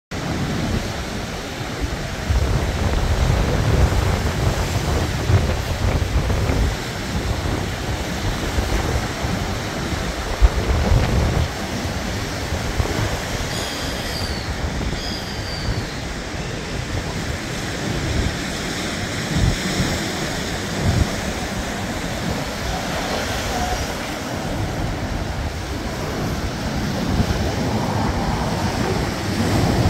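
Surf washing onto a rocky shore, with wind buffeting the microphone in gusts. About halfway through there are two short high chirps.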